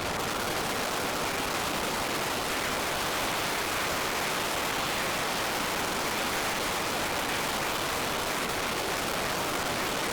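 Steady, even rushing noise with no tones or distinct events, holding the same level throughout.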